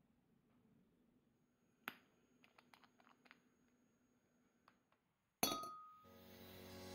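Faint clinks and ticks of small glass objects being handled on a tabletop: one sharp clink, then a cluster of lighter ticks. Near the end a sudden bright chime rings out and fades as background music begins.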